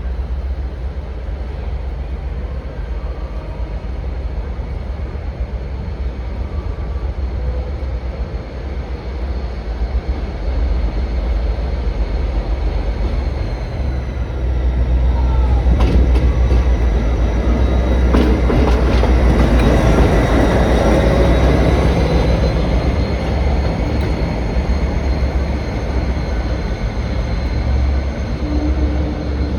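Train moving slowly through a station with a steady low rumble. It grows louder about halfway through, with wheels clicking over rail joints, then eases off.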